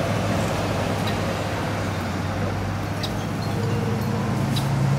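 Steady low hum of a motor vehicle engine or road traffic, with a few faint short clicks.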